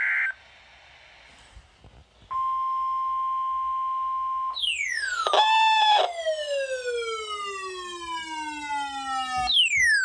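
NOAA weather radio test signal: a steady alarm tone near 1 kHz for about two seconds, then a weather alert receiver's siren alarm sounding as long falling sweeps. One sweep starts about four and a half seconds in and another near the end, as the receiver is set off by the weekly test.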